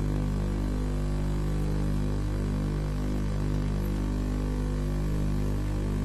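Steady electrical hum with a stack of buzzing overtones over a faint hiss: mains interference in the webcam's audio feed.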